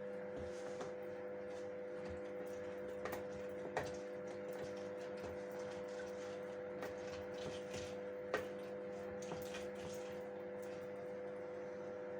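A mandarin being squeezed by hand into a small glass: faint wet squishing and juice trickling, with a few light clicks. A steady electrical hum runs underneath.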